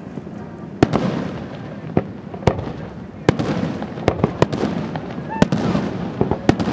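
Aerial fireworks shells bursting: a series of sharp bangs over a continuous low rumble. They come sparsely at first, then in quick clusters from about three seconds in.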